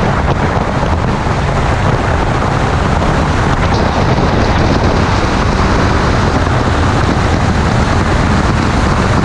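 Loud, steady wind noise on a camera microphone mounted on the outside of a Lotus Exige 430 Cup at track speed, with the car's running noise underneath.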